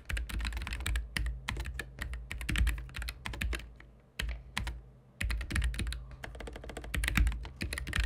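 Typing on a Keychron K13 Pro low-profile mechanical keyboard with Gateron brown switches: a quick, dense run of muted key clacks, broken by a short pause about halfway through.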